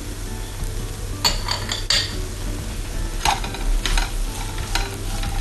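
A spoon stirring a stir-fry in a pan on the flame, its strokes scraping and clinking against the pan in two short runs, over a steady low hum.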